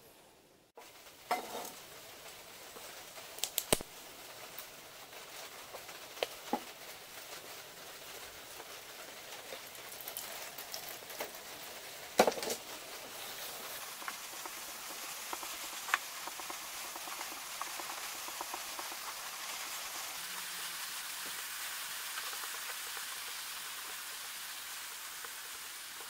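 Sponge scrubbing the inside of a metal frying pan in soapy water, a steady wet swishing that grows as the suds build up. A few sharp knocks on the pan come through, the loudest about twelve seconds in.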